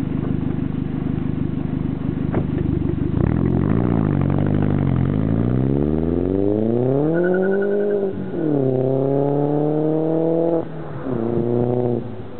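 Volkswagen Jetta 1.8T turbocharged four-cylinder engine through a 3-inch catless turbo-back exhaust with a 4-inch tip. It runs low and steady, then pulls away and accelerates hard, its note climbing in pitch. The pitch drops at two upshifts, about eight and ten and a half seconds in, and the sound falls away near the end as the car goes out of range.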